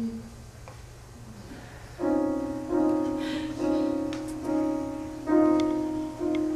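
Acoustic piano playing a slow series of chords, each struck a little under a second apart, coming in about two seconds in after a held low note dies away and a short hush.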